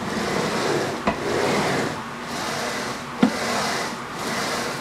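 CNC spindle carriage pushed back and forth by hand, its linear bearing blocks rolling along round supported rails with a rubbing noise that swells on each stroke, about one stroke a second. A sharp knock comes about a second in and another about three seconds in.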